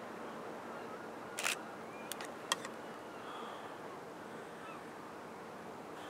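Steady outdoor waterside ambience with faint distant bird calls, broken by a few sharp clicks, the loudest about a second and a half in and another about a second later.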